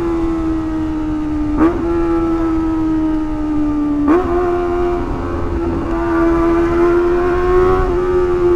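Kawasaki ZX-25R's 250 cc inline-four engine running high in the revs, its note sliding slowly down as the bike slows. It breaks off sharply twice, about one and a half and four seconds in, each time coming back slightly higher: downshifts, the gear display dropping from fifth. Near the end the note rises a little and grows louder as the throttle opens again.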